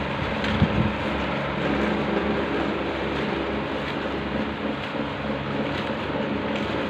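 A room fan running: a steady hum and hiss, with a couple of soft bumps near the start as the bouquet is handled.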